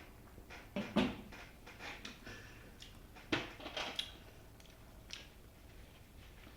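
A person tasting beer from a large glass: a sharp knock about a second in and another a little after three seconds in, with smaller handling and mouth sounds between.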